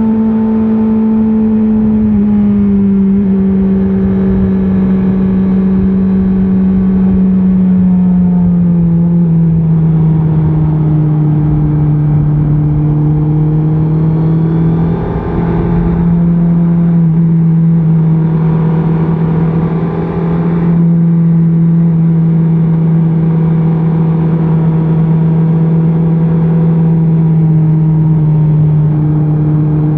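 2024 Honda CBR650R's inline-four engine with its stock exhaust, running under way at a steady cruise. Its note eases down in a couple of steps over the first ten seconds, then holds, and the sound briefly drops off twice, about halfway and two-thirds of the way in, with a low wind rumble beneath.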